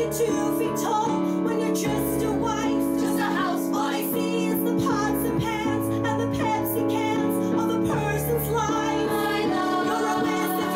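Live musical-theatre song: a woman singing with keyboard accompaniment holding sustained chords, with women's chorus voices joining near the end.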